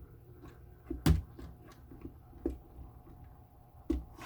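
A custom Lego 6x6 truck being rolled over obstacles: a series of irregular plastic knocks and clacks as its wheels and simulated suspension bump over and drop, the loudest about a second in.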